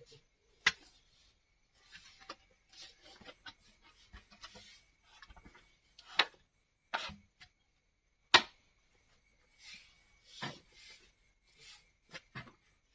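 Bamboo being handled and worked: a few sharp knocks, the loudest about eight seconds in, with scraping and rubbing in between.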